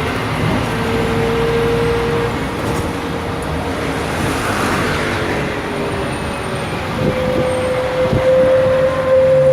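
Scania K310 articulated city bus with a ZF automatic gearbox, in motion: steady engine and road noise with a whine from the drivetrain. About seven seconds in, the whine comes back stronger and rises slightly as the bus gets louder, picking up speed.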